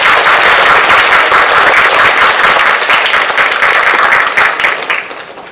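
A loud audience of students applauding, the clapping dying away near the end.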